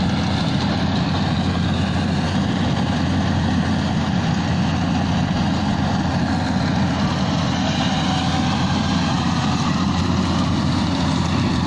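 Rice combine harvester's diesel engine running steadily while it works the field, one continuous low drone.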